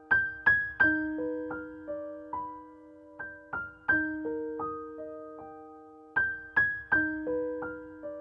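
Background music: a gentle keyboard melody of single ringing notes that strike and fade, with the same short phrase coming round again every few seconds.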